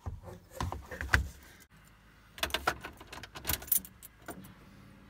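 A run of light clicks and rattles in two short bunches, the second starting about two and a half seconds in, then quiet.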